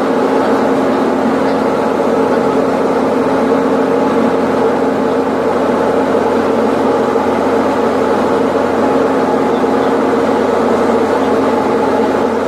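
Diamond DA-40 Diamond Star's single piston engine and propeller running steadily in flight, heard inside the cockpit as an even drone with several steady hums.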